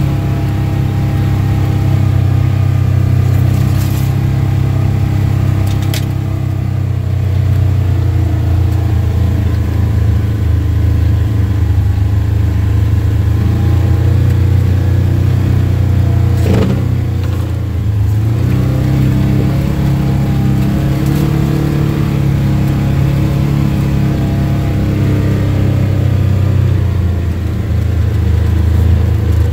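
Polaris General side-by-side's engine running steadily under way on a dirt trail, heard from the cab, its pitch rising and falling with the throttle. A few brief knocks come from the rough ride.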